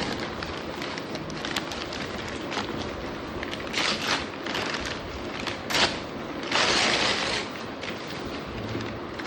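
Packaging being handled as a shoe box is unboxed: scattered clicks and short bursts of rustling and crinkling, with the longest rustle about two-thirds of the way through.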